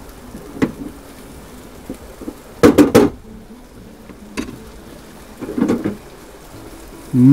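Cooking utensils knocking against a frying pan and a wooden chopping board. There is a light click, then a quick run of four or five sharp knocks about two and a half seconds in, then a short clatter later on.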